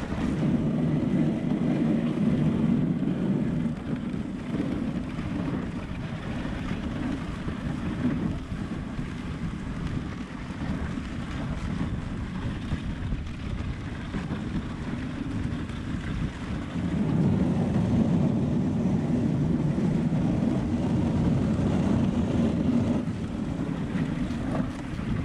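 Dog sled's runners sliding over a packed-snow trail, with wind on the microphone; the rush is louder for the first few seconds and again for a stretch about two-thirds of the way through.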